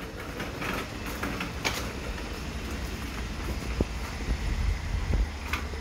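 Loaded metal shopping cart rolling over asphalt: a steady rumble from the wheels, with the wire basket rattling and a few sharp knocks.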